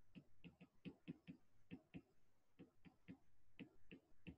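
Faint, irregular clicks and taps of a stylus on a pen tablet as words are handwritten, about three or four a second.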